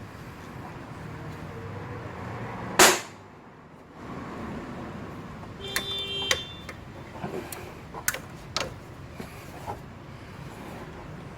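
Metallic clanks and clicks of tools and parts being handled: one sharp loud bang about three seconds in, a ringing clink a few seconds later, then several lighter clicks, over a steady background hum.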